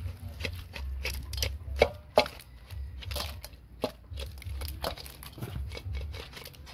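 Curried blue crabs tipped and scraped out of a metal pot into a stainless steel bowl: a run of clattering clicks and knocks from the shells and a spoon against the metal, with two sharper knocks about two seconds in.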